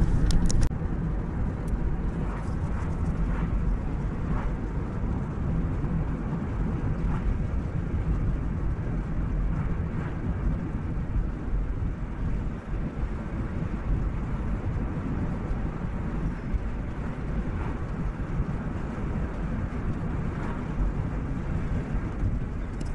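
Steady road and engine noise inside a moving car's cabin: an even low rumble with no marked changes.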